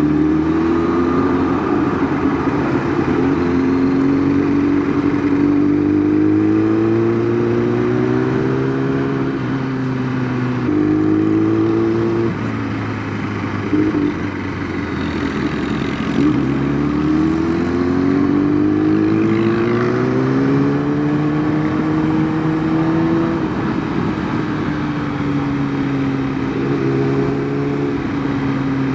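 Kawasaki ZX-10R's inline-four engine pulling through the gears under way, its pitch climbing with each acceleration and dropping back at each upshift several times, then easing off near the end.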